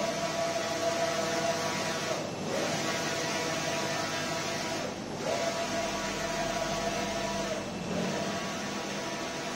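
Yaselan double-sided sublimation fabric printer running as its print-head carriage sweeps back and forth. A steady motor whine breaks off briefly and picks up again about every two and a half seconds as the carriage reverses, all over a constant hiss.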